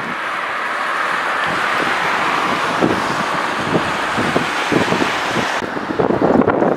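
Steady rushing of fast-flowing River Severn floodwater, with wind gusts buffeting the microphone. The hiss cuts off about five and a half seconds in, leaving heavier wind buffeting.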